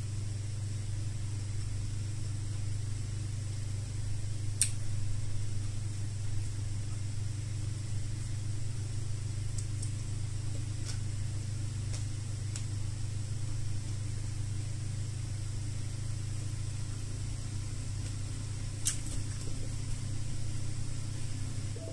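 Steady low hum from the room, with a few faint sharp clicks of someone eating by hand: one about five seconds in, a few in the middle, one near the end.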